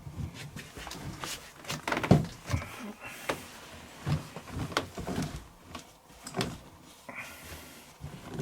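Laundry being pushed by hand into a washing machine drum: irregular soft thumps and rustles of fabric, with knocks against the machine, as an overfull load of about 14 kg is crammed in.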